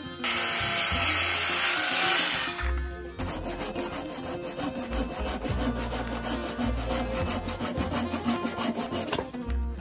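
A cordless Milwaukee circular saw cuts into a thick wooden timber for about three seconds, then a handsaw takes over, rasping through the wood in quick, even back-and-forth strokes to finish the cut.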